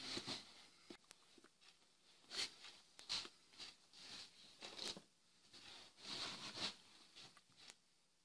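Faint, irregular rustling and scuffing of a leather jacket and hands as a person moves and signs, with a few short sharp ticks and brushes as a plastic instrument panel is picked up.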